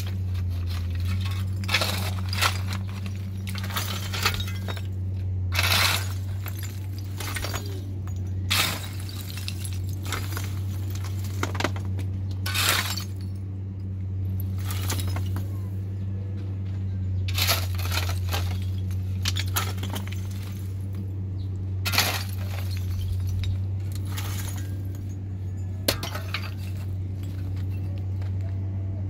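Irregular sharp clinks and knocks, like glass or hard objects being handled, every second or two, over a steady low hum.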